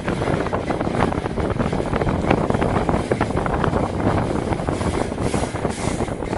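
Passenger train running along the line, heard from aboard a carriage: a steady rumble of the wheels on the rails with constant rattling and clatter.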